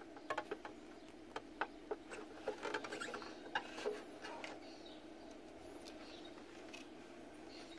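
Light clicking and scratching from a soldering-iron tip being worked along a crack in a hard white plastic refrigerator shelf, with the plastic ticking under the hand holding it, over a faint steady hum. The clicks come quickly for the first few seconds and then thin out.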